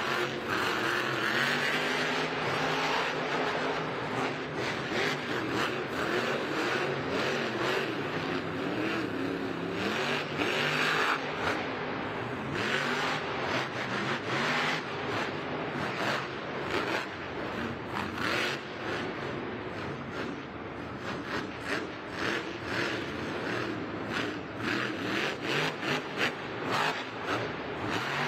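Son-uva Digger monster truck's supercharged methanol V8 revving hard and repeatedly, its pitch climbing and falling as the truck is driven through a freestyle run of jumps and mounds.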